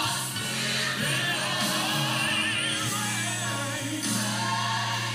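Gospel song with singing, the voices wavering on long held notes over steady sustained low notes.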